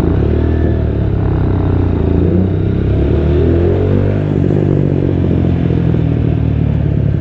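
Motorcycle engine running at low revs while riding slowly, its pitch mostly steady with small rises and falls.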